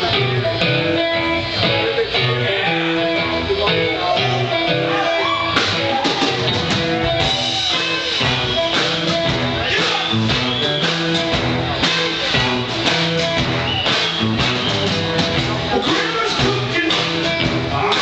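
A live band playing an upbeat song, with guitar prominent over a steady beat.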